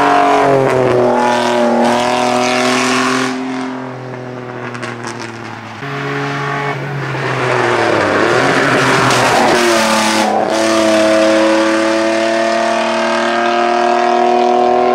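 Ford Sierra XR4x4 hill-climb race car at full throttle, its engine revving high and climbing in pitch, dropping back at each upshift and rising again. It goes quieter for a couple of seconds early on, then comes back loud and holds a high, slowly rising pitch through the last third.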